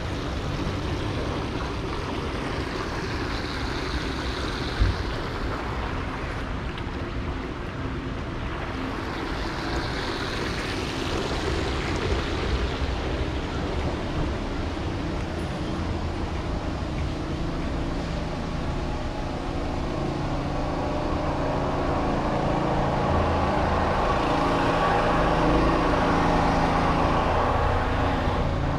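Street traffic: a steady rumble with cars swishing past, and a vehicle engine's hum that grows louder over the last third. A single sharp knock about five seconds in.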